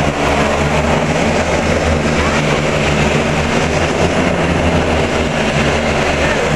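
A loud, steady mechanical drone with a low hum, unchanging throughout.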